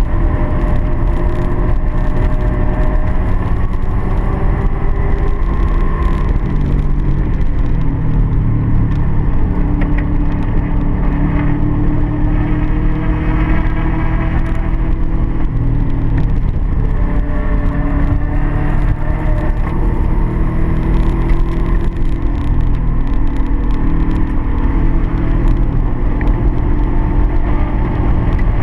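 Car engine running hard on a race track, its pitch climbing and falling again and again as the car accelerates and slows through the corners.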